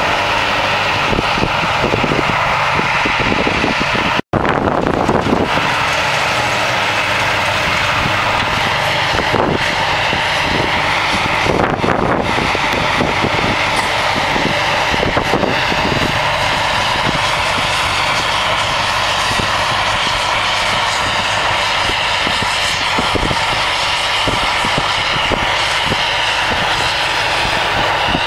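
New Holland self-propelled forage harvester running steadily under load, its engine and chopping cutterhead making a continuous loud drone as it picks up and chops grass for silage.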